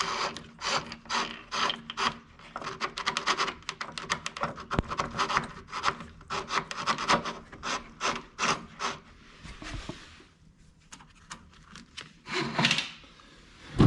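New steel inner wire of a Vespa rear brake cable being pulled through its routing: a quick run of rasping scrapes of wire sliding through. The scrapes thin out about ten seconds in, and one more loud scrape comes near the end.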